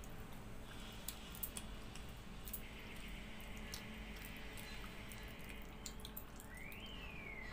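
A hand squishing and mixing water-soaked rice (pakhala) in a steel bowl, making wet squelches and many small scattered clicks.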